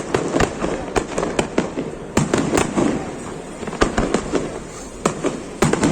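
Fireworks display going off: a rapid, irregular series of sharp bangs, some in quick clusters of several a second.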